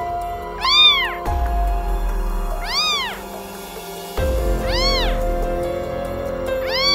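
Cat meows, four alike calls about two seconds apart, each rising then falling in pitch, over background music.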